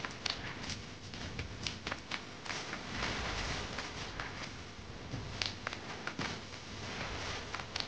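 Indoor room tone: a steady hiss with scattered light clicks and taps spread through it.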